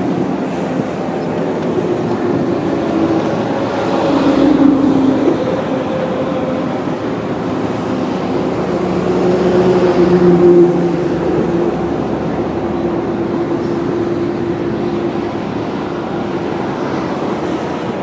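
Steady noise of passing motor traffic with an engine hum, swelling twice: about four seconds in and again around ten seconds.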